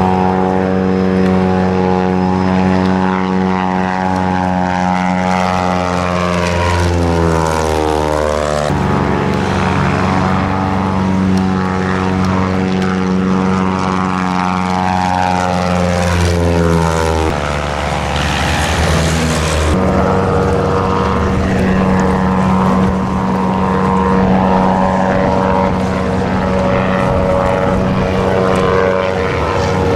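Propeller engine of a small floatplane flying low overhead, a steady drone whose pitch slides down twice as it passes, about a quarter of the way in and again just past halfway.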